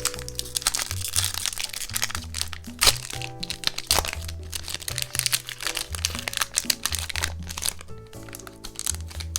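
Crinkling and crackling of Pokémon card packaging being handled, a dense run of sharp crackles that thins out near the end, over background music with a steady bass line.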